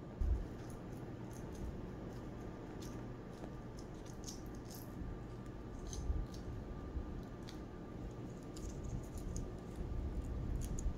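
Scissors snipping through soft silicone thermal pad on its plastic backing film: a scattered series of short, quiet snips and clicks, with light handling bumps.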